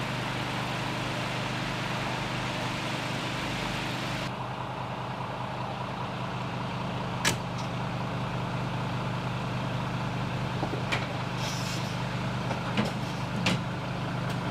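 Heavy truck's diesel engine idling steadily, with a few sharp clicks, one about halfway through and two near the end.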